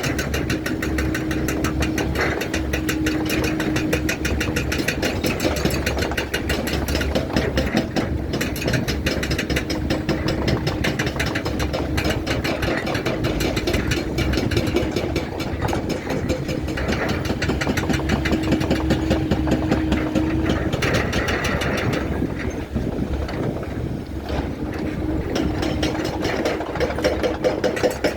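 Diesel engine of a Doosan 480 excavator running steadily, with a fast, even firing beat and a steady hum that fades in and out several times.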